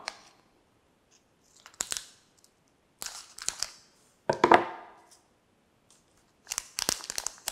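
Scissors cutting open a foil pouch, with the foil crinkling as it is handled: a few separate rustling snips about a second apart, then a quick run of sharp snips and crackles near the end.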